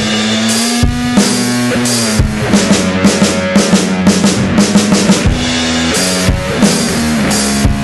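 Instrumental rock passage: a drum kit beat of snare and bass drum hits with cymbal wash, over a held low note that bends slightly in pitch.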